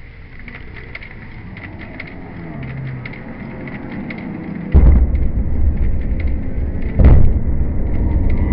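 Demolition charges of the Greenfield Bridge implosion: a sudden heavy boom about four and a half seconds in and a second boom about two seconds later, with a low rumble of the collapsing bridge continuing between and after them.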